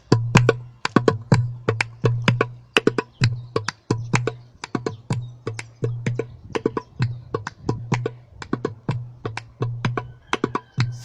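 Drum being played by hand in a fast, steady rhythm: crisp, sharp strikes mixed with a recurring low, ringing bass tone.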